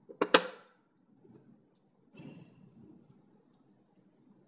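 Metal parts of a dismantled VE diesel injection pump clinking and clanking as they are handled on a workbench. There is one sharp clank just after the start, then a few lighter clicks and a brief ringing clink about two seconds in.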